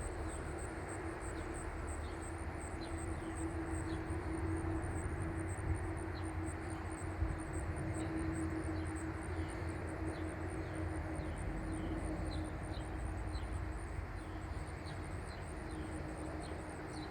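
Distant rumble of the FedEx MD-11F's jet engines with a steady hum, swelling slightly and then easing off toward the end. Insects chirp throughout.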